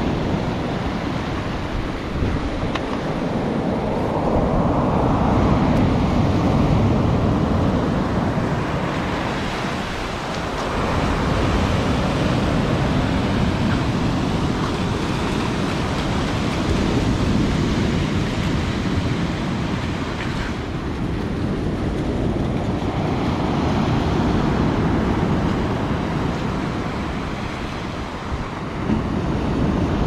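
Rough storm surf breaking and washing up a pebbly beach, a continuous wash that swells and ebbs every few seconds as each wave comes in.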